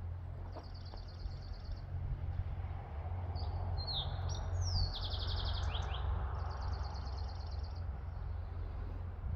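A small songbird singing high, thin notes: a quick trill about half a second in, a run of slurred, falling notes in the middle, and another trill near the end. A steady low rumble runs underneath throughout.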